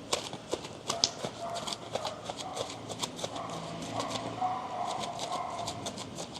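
A horse's hooves clip-clopping as it walks, a run of sharp hoof strikes, uneven in spacing. A faint wavering tone sits beneath them through the middle.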